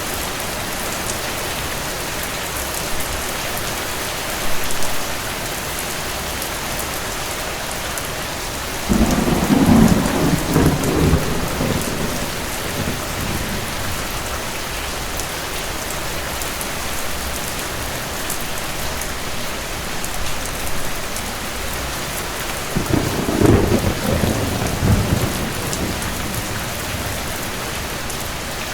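Steady rain with rolls of distant thunder: a long low rumble about nine seconds in lasting some three seconds, another around twenty-three seconds in, and a short fainter one near four seconds.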